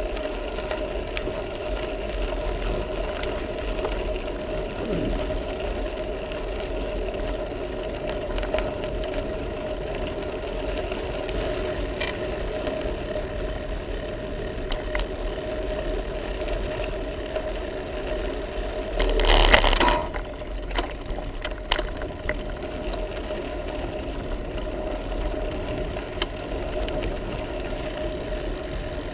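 Bicycle riding along an unpaved sandy track, picked up by a camera mounted on the bike: a steady rumble of tyres and frame vibration with a faint constant hum. A brief louder rush of noise comes about two-thirds of the way through.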